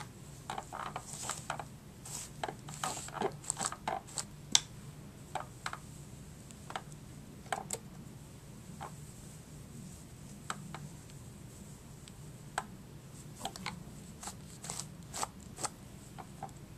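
Fingers twisting and handling a doll's synthetic hair: an irregular string of short rustles and crackles, busier in the first few seconds and again near the end.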